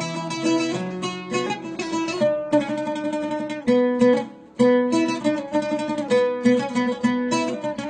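Instrumental interlude of a Syrian mawlaya folk song: a plucked string instrument playing a quick run of picked melodic notes, with a short break about four seconds in.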